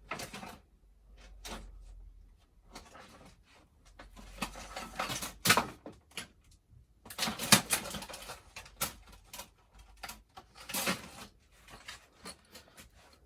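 Handling noises: irregular rustles, clicks and knocks as a boxed mortice lock in its packaging and the picking tools are moved about and set down, with a few louder knocks.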